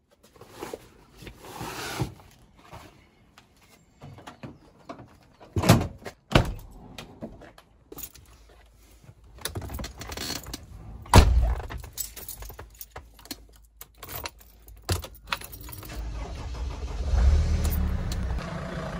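Keys jangling among a series of sharp clicks and knocks, then near the end a vehicle engine starts, swells briefly and settles into a steady idle.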